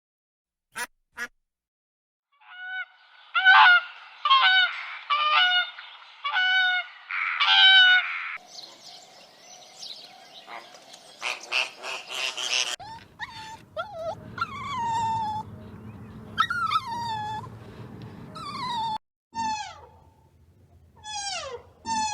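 Geese honking: a run of about six honks, then a rougher, noisier stretch, then a long series of repeated calls that each fall in pitch.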